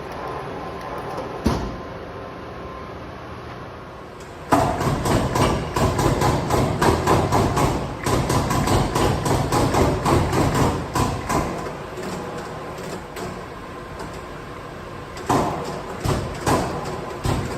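Washino PUX-25 air-clutch mechanical power press running, its flywheel drive humming steadily. From about four and a half seconds in, the slide cycles continuously with rapid repeated clanking, which eases back to the steady run about twelve seconds in, followed by a few separate clunks near the end.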